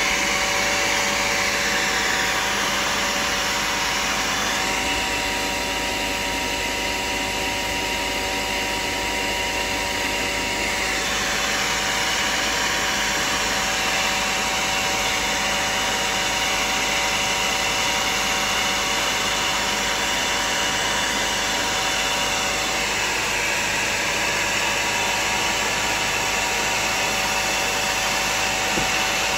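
Carpet-cleaning extractor's vacuum motor running steadily: a loud rush of air with a high whine over it, the rushing changing a little about five seconds in and again near eleven seconds.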